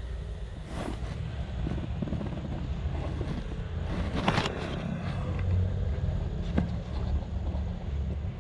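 Motor scooter heard from the rider's seat while riding slowly: a steady low rumble of engine and wind on the microphone, with a few sharp knocks, the loudest about four seconds in.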